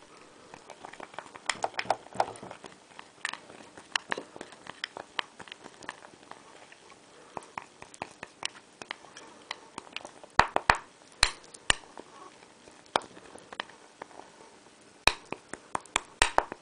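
Metal spoon stirring a thick rice-powder and rose-water paste in a small glass bowl: irregular light clinks and scrapes of the spoon against the glass, in clusters, loudest about ten seconds in and again near the end.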